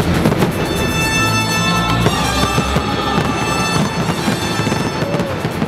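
Music with long held notes plays loudly over a stadium while fireworks crackle and pop overhead.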